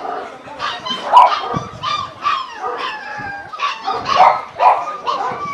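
A pack of dogs barking and yipping over one another, many voices at once in quick, irregular barks.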